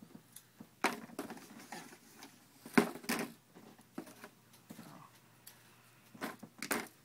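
Handling noises at the workbench: a series of short clicks, taps and rustles, a few of them sharper knocks, as the foam RC plane, a fork and Velcro pieces are picked up and moved.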